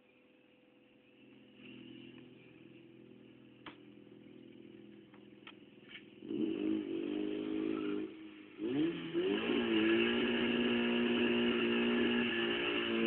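Engine of a VW Golf Mk2 G60, its supercharged four-cylinder idling quietly with a few clicks. It is revved up about six seconds in, drops back near eight seconds, then is revved again about a second later and held at steady revs.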